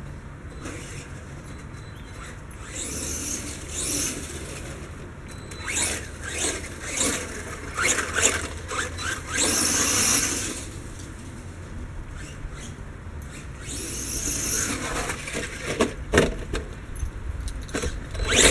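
Blackout XTE Pro electric RC monster truck driving in bursts across grass, its running noise rising and falling as it speeds up and slows, loudest about ten seconds in. Several sharp knocks near the end as it comes up close.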